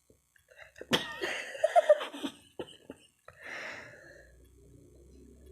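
A person coughs sharply about a second in, then makes short stifled, breathy vocal sounds, while her nose is being tickled to try to make her sneeze.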